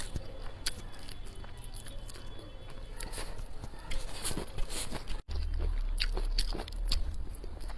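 A person chewing and biting food close to the microphone: irregular crisp clicks and crunches and wet mouth sounds, with a brief cut in the sound about five seconds in.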